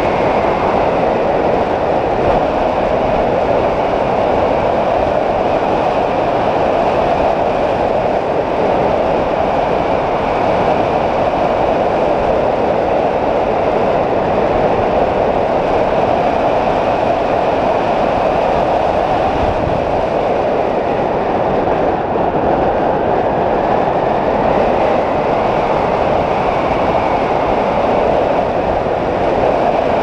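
Steady, loud rush of wind over a wing-mounted GoPro on a hang glider in flight, the airflow unbroken and unchanging.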